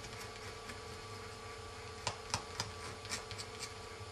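Faint rubbing and a few light ticks, about two to three seconds in, as fingers press adhesive tape stickers down onto an iPhone 3G touchscreen frame, over a steady faint hum.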